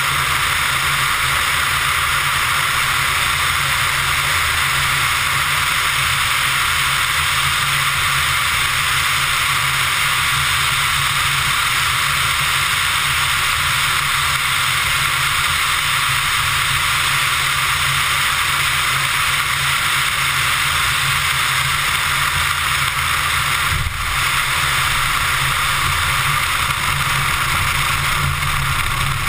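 Steady wind rush over a tail-mounted GoPro in its housing, with the Pipistrel Virus ultralight's engine droning low underneath, as the plane comes in low and lands on grass. There is a brief dip in the noise a few seconds before the end.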